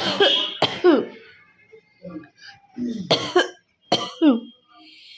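A woman coughing hard on purpose: four harsh coughs, each ending in a falling voiced tail. Two come close together at the start and two more about three and four seconds in.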